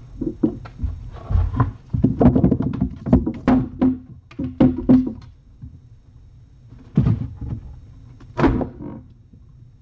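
A cat and kitten wrestling and scrambling in a wooden cabinet close to the microphone: irregular thumps, knocks and scuffs, with two louder knocks in the second half.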